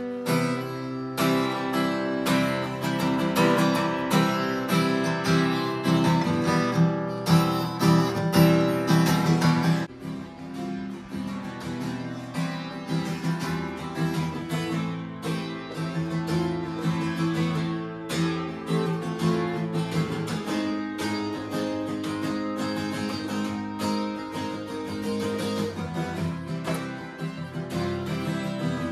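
Acoustic guitar strumming chords, starting sharply and a little louder for the first ten seconds or so, then playing on more softly.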